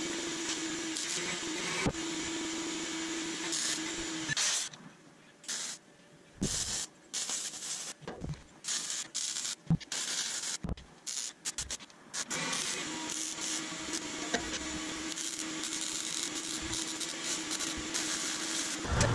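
A motor-driven power tool running steadily with a hum and a rough grinding hiss. In the middle stretch it comes in short on-and-off bursts with quiet gaps between, then runs steadily again.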